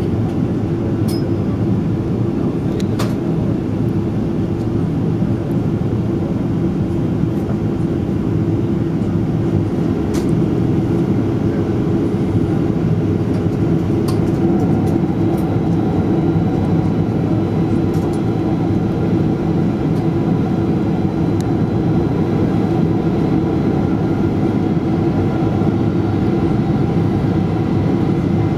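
Steady cabin noise inside a Boeing 777-200ER descending on arrival: a low, even rumble of its twin turbofan engines and the airstream over the fuselage, with a few faint ticks.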